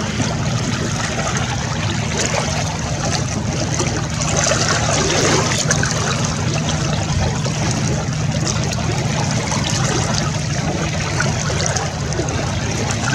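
Small waves lapping and splashing close to the microphone, with a steady low hum underneath.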